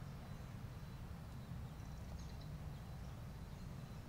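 Quiet outdoor ambience: a steady low rumble, with a few faint high bird chirps about two seconds in.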